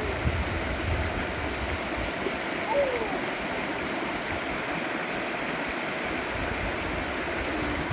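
Mountain valley stream flowing steadily over rocks. Two faint short falling calls sound near the start and at about three seconds.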